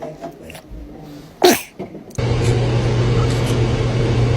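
A baby sneezes once, a short sharp burst about a second and a half in. Just after two seconds a steady low hum with a hiss cuts in suddenly; it is the loudest sound here.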